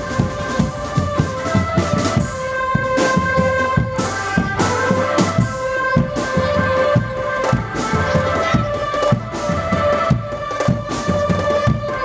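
Drum band music: drums and cymbals beating a quick, steady rhythm under a melody of held notes that steps from pitch to pitch.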